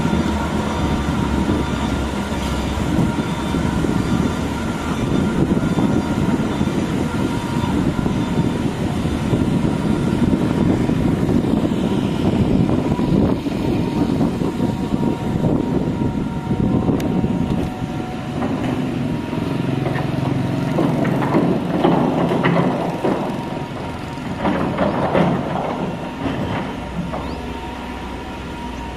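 Cat hydraulic excavator's diesel engine running steadily under load as it digs in the riverbed, with a few knocks and scrapes in the second half.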